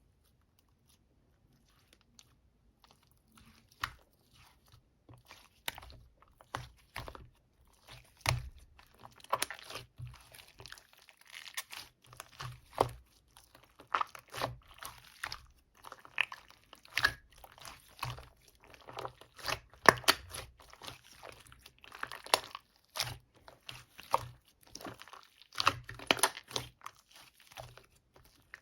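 Soothing-gel slime being squished and pressed, giving irregular crackling and popping clicks that are sparse for the first few seconds and then come thick and fast.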